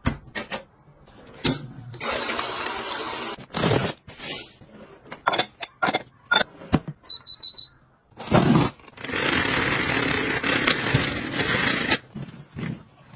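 Household gadgets being handled: plastic clicks and knocks, with two stretches of steady rushing noise lasting a second or more each, and a short triple electronic beep about seven seconds in.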